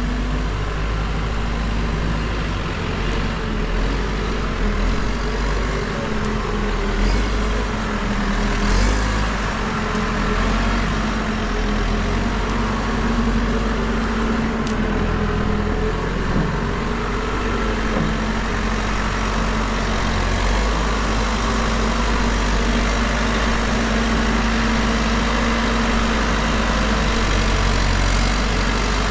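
New Holland backhoe loader's diesel engine running steadily while the machine works, its pitch shifting up and down a few times as engine speed changes. A brief sharp click sounds about halfway through.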